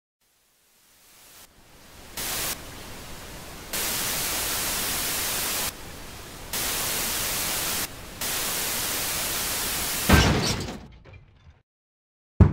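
Television static hiss as an end-screen sound effect, stepping between louder and quieter stretches every second or two. About ten seconds in it ends in a louder crackling thump that fades away, followed by a single sharp click near the end.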